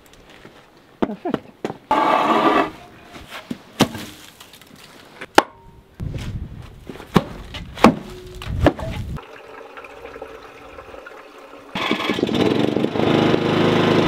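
Timber being handled and stacked: a string of sharp wooden knocks and clatter, with stretches of scraping noise between them.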